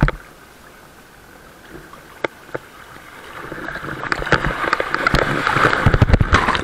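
Lake water rushing and splashing against an action camera as a wakeboarder is towed through the water, building from about three seconds in and loudest near the end, with knocks and low thumps of water hitting the camera.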